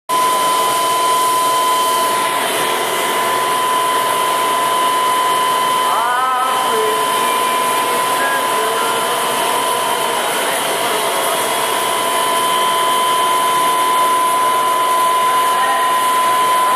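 Zipper monofilament extrusion machine running: a steady whir of motors and blower with a constant high whine.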